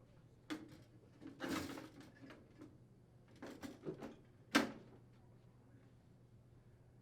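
Sheet-metal vent hood panel being handled and fitted to the cabinet: a click, a short scrape, a few small knocks and one sharper metal knock near the end.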